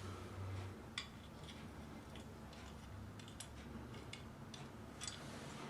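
Faint small clicks of rifle parts being handled as the charging handle of a Mossberg Tactical 22 is worked back into place during reassembly: one about a second in and several more in the second half.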